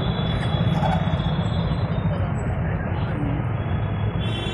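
Steady low rumble of a moving vehicle's engine and road noise, heard from inside the cabin.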